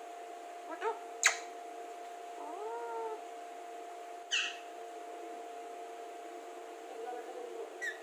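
Alexandrine parakeet calling: a few short squawks and whistled calls, with two sharp high shrieks about a second in and about four seconds in, and softer chatter near the end.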